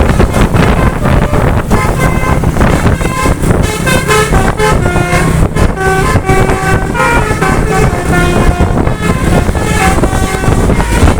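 Basuri telolet horn on a tour bus playing a tune of short multi-tone notes that step up and down in pitch, over a heavy low rumble of wind and road noise.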